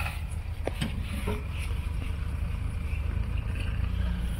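Jeep Grand Cherokee's engine running at low revs as it crawls slowly down over loose rocks, a steady low rumble. There are a few sharp clicks about a second in, from stones shifting under the tyres.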